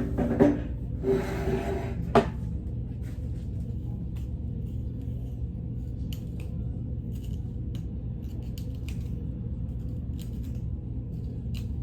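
Steady low hum with scattered faint, short clicks and snips of close handling. Several louder knocks and rustles come in the first two seconds.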